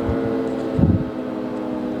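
Federal Signal 3T22 three-tone civil defense siren sounding, heard from a distance as a steady chord of several held tones. Low wind rumble on the microphone runs under it, with a louder gust just under a second in.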